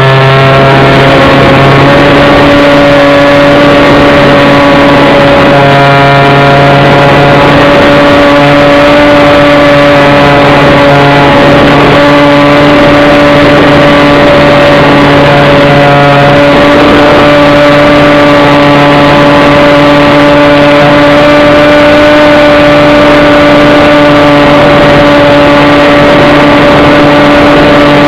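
A small engine running steadily at constant speed, loud and close, holding an unchanging pitch throughout.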